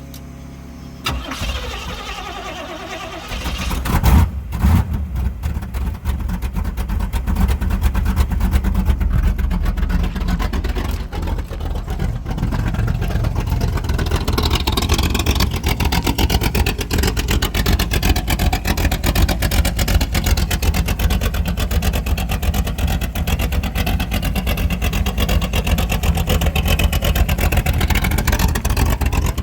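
350 small-block Chevy V8 being cranked and starting about four seconds in, then running steadily through its exhaust.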